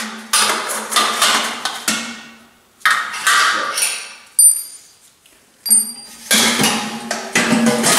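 Stainless steel bucket clanking against the steel-tube stand and its holder as it is handled and pulled out: a series of sharp metallic knocks, several ringing brightly, with a short lull about midway and a quick run of knocks near the end.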